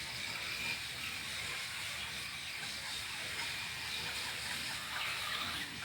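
Steady, featureless background hiss with no distinct events.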